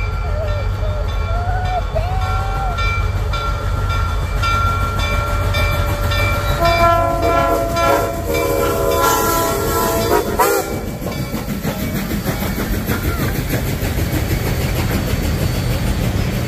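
Diesel freight locomotive rumbling with steady high squealing tones from the train. For about three seconds midway a locomotive horn chord sounds over it.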